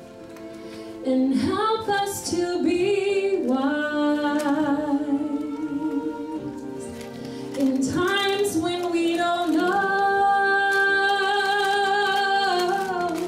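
A woman sings a slow song through a handheld microphone over instrumental accompaniment, holding long notes. The longest is held from about ten seconds in until near the end.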